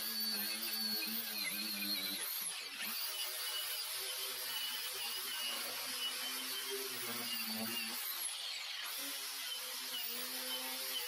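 Small angle grinder running against a steel leaf-spring leaf, cleaning off rust and scale. It makes a continuous motor whine whose pitch dips and recovers as it bears on the metal.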